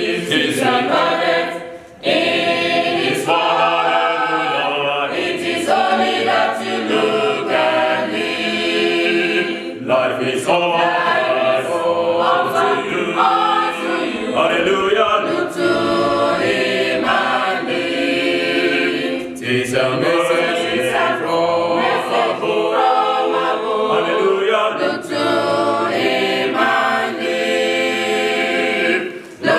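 Small mixed choir of women and men singing a hymn together, with a short break between phrases about two seconds in.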